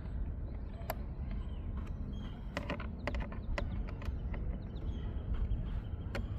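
A few sharp, irregular clicks and taps of a screwdriver and plastic door-handle parts being handled, over a steady low background rumble.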